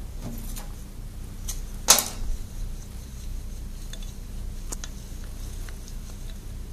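Wooden craft stick stirring oil-absorbent granules into oily water in a glass beaker: scattered faint clicks and taps, with one sharper knock about two seconds in, over a steady low hum.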